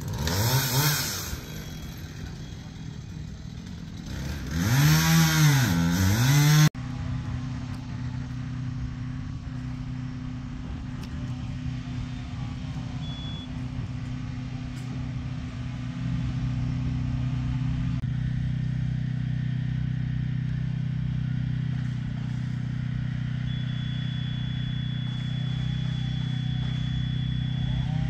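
An engine revving up and down in two loud bursts, then a steady engine-like hum at an even pitch.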